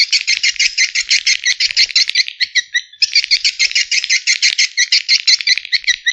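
Edible-nest swiftlet calls from a lure recording: a fast, even run of short chirps, about eight a second, with a brief break about three seconds in. This is the kind of sound played to draw young swiftlets into a new nesting house.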